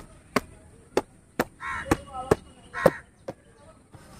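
A hand slapping the tops of cardboard toy boxes: eight sharp slaps, coming in pairs roughly every half second.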